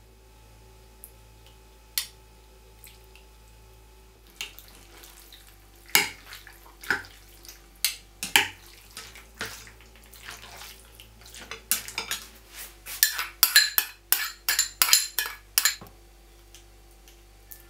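A metal spoon and chopsticks clinking against a glass bowl while mixing marinade into sliced pork: a lone tap at first, then a run of irregular clinks that come quickest in the last few seconds.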